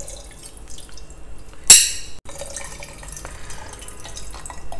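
Soaked tamarind and its water poured through a hand into a metal pot, dripping and splashing, then the wet pulp squeezed by hand to extract the juice. One sharp, louder sound comes about two seconds in.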